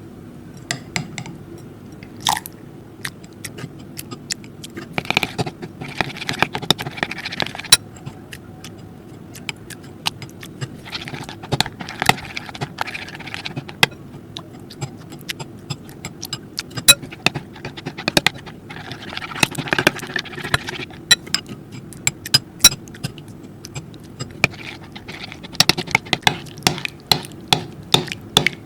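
Homemade slime being squished and worked by hand or with a utensil, giving irregular sticky clicks, pops and short squelches over a steady low hum.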